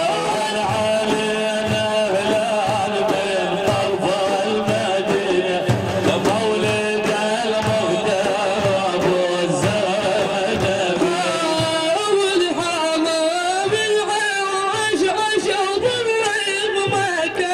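Arabic devotional praise singing (madih): a male voice holds long, wavering melodic lines over a continuous beat of drum strokes.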